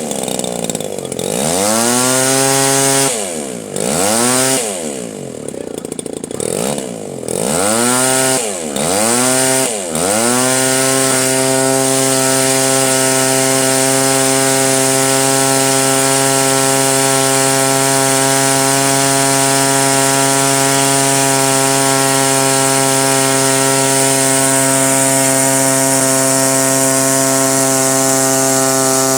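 RC model airplane engine being run up on the ground: throttle blipped up and down four times, then held steady at high revs for about twenty seconds before being cut back near the end.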